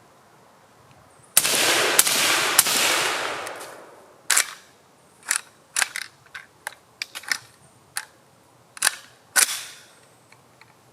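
Suppressed shots from a 5.56mm AK rifle fitted with a Dead Air Wolverine silencer. About a second and a half in, three quick shots come with a long noisy tail. About a dozen more single shots follow at uneven spacing.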